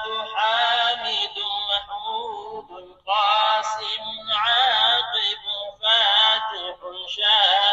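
A man's voice melodically chanting the blessed names of the Prophet Muhammad, played back through a digital Quran reading pen's speaker, in short wavering phrases with brief pauses between them.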